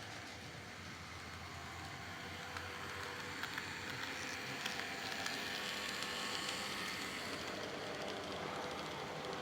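Model train running on the layout track: the small electric motor and metal wheels on rail make a steady whirring hum that grows louder toward the middle as the train comes near, with a few light clicks, likely at rail joints, then eases off slightly.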